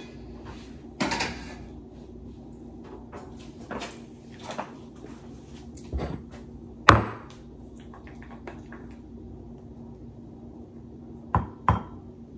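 Kitchen handling sounds: scattered knocks and clinks as a speckled nonstick saucepan and a glass bowl are handled on a table. The loudest is a sharp knock about seven seconds in, with two quick clicks near the end, over a steady low hum.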